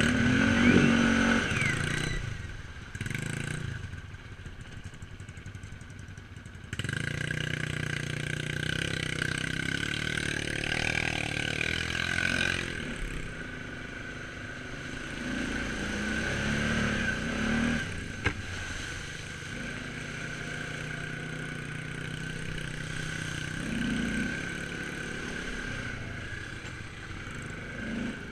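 Quad bike (ATV) engine running under a rider, throttle rising and falling over a rough dirt trail. The engine drops back a couple of seconds in and picks up sharply again after about seven seconds, with a single sharp click later on.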